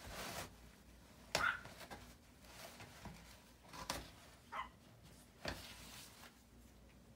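A Bengal cat clawing and biting toilet paper rolls on a wall holder: bursts of paper tearing and rustling, with a few short squeaks among them.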